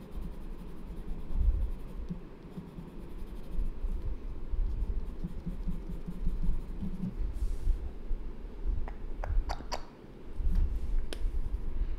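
Pencil scratching on paper in short shading strokes, over a low rumble of the hand and paper moving on the desk. A few sharp clicks near the end.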